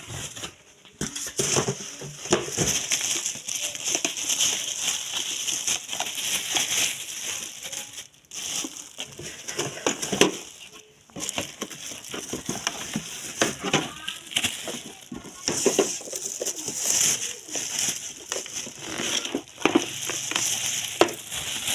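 Plastic and cardboard packaging crinkling and rustling as it is handled, with many short crackles.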